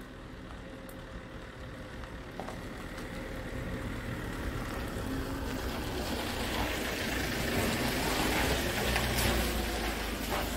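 Camper van driving past on a campsite road: engine and tyre noise growing steadily louder as it approaches and passes close by, easing off near the end.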